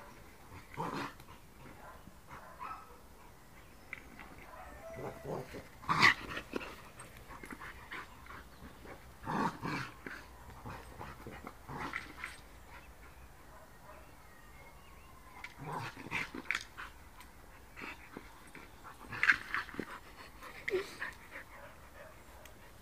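A dog's short grunts and growls as it plays, pushing a ball around with its nose. About a dozen brief, scattered sounds, the loudest about six seconds in and again near the end.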